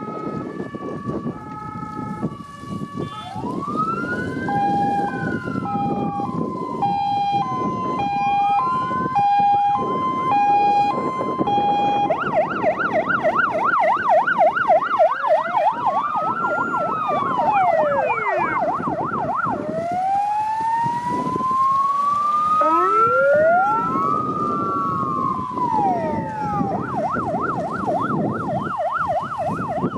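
Several fire-engine sirens sounding together: a two-tone hi-lo, slow wails rising and falling, and from about twelve seconds in a fast yelp, over the noise of the vehicles' engines.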